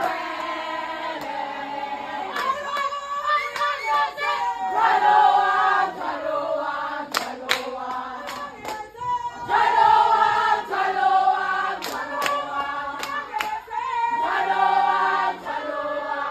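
A group of women singing together in sustained, repeating phrases, with sharp hand claps joining in from about halfway through.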